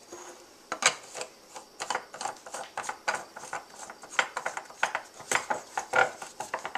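Whipped cream dispenser's head being fitted and screwed onto the canister's threaded neck: a rapid, irregular run of small clicks, knocks and scrapes of hard parts being handled.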